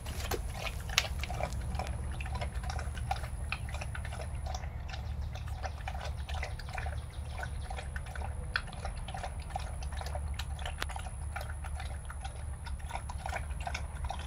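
A dog lapping milk from a steel bowl: a steady run of quick wet laps, a few a second, over a low background rumble.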